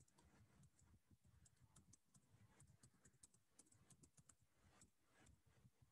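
Faint computer keyboard typing: an irregular run of quick key clicks.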